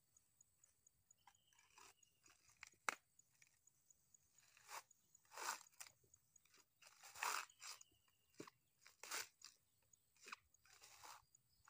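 Fibrous coconut husks crunching and rustling in short, irregular bursts as whole husked coconuts are picked up and dropped onto a pile, with a sharp knock about three seconds in.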